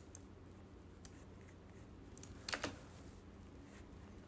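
Faint, scattered clicks of a computer mouse and keyboard, with one louder double click about two and a half seconds in, over a low steady hum.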